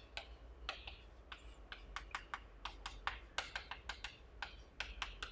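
Chalk writing on a chalkboard: a quick, uneven run of faint clicks and taps as the strokes of the letters hit the board.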